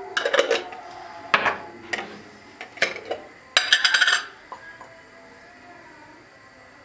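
Kitchen dishes and utensils clattering: a few separate knocks in the first three seconds, then a quick run of rapid clinks about three and a half seconds in, before it goes quiet.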